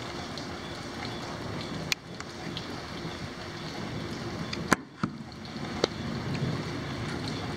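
Steady heavy rain falling, with a few sharp clicks and taps, about four of them between two and six seconds in.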